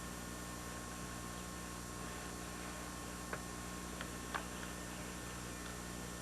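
Steady low hum and hiss, with three faint short clicks a little past the middle.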